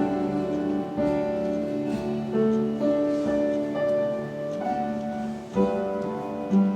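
Keyboard playing slow instrumental music, held chords that change every second or two, with a few struck notes on top.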